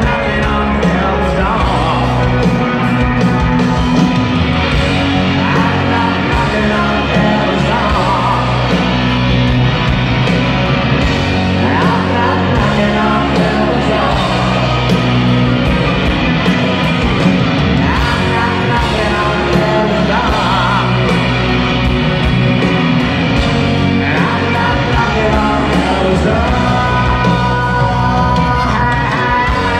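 Rock band playing live through a stadium sound system: a male lead vocalist singing over electric guitars and a steady band backing, picked up from the stands.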